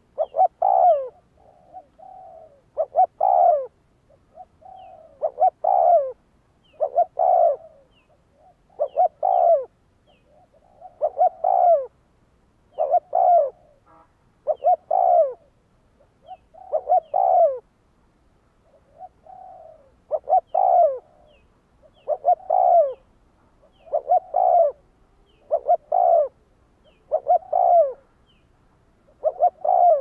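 Spotted dove cooing, with repeated phrases of a few short notes each, roughly every two seconds; some phrases are soft and most are loud.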